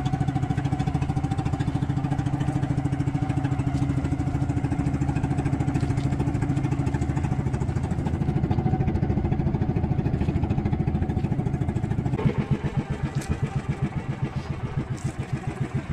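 Motorized outrigger boat's engine running steadily under way, then throttled back about twelve seconds in to a slow idle with each firing beat heard separately, as the boat slows to come in.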